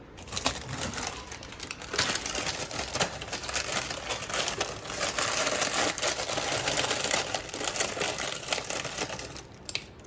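Plastic packet of toast rusks crinkling and rustling as it is handled and opened, a dense run of small crackles that dies away near the end.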